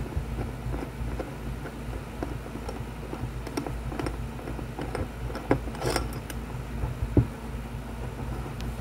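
Small metallic clicks and scrapes of a Mosin-Nagant rifle bolt being taken apart by hand, with one sharper click about seven seconds in, over a steady low hum.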